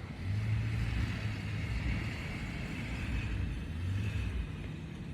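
Low outdoor rumble with a low hum that swells and fades a few times, like engines passing in the distance.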